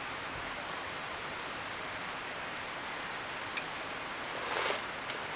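Beef sirloin sizzling on a hot pan: a steady hiss with a few faint pops, swelling briefly near the end.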